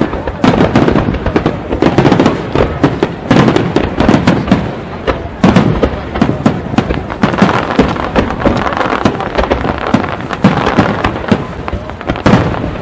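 Aerial fireworks display: many overlapping shell bursts and crackles in a rapid, unbroken barrage.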